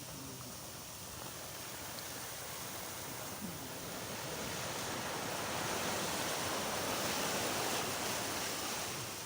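Sea waves washing onto a sandy beach, a steady rush that swells about halfway through and eases off near the end.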